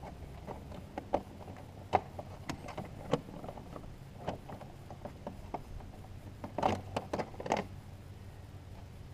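Scattered clicks and knocks of hands working on top of a V8 engine, handling the parts on the intake, with a short run of louder clattering about two-thirds of the way through.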